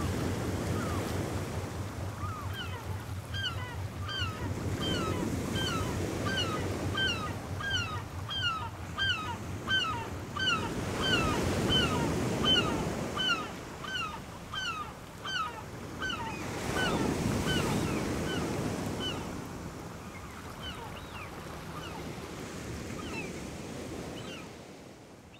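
Sea sound effects: waves washing in slow surges about every six seconds, with a bird calling in short repeated chirps about twice a second that stop a few seconds before the end. A low hum fades out in the first several seconds.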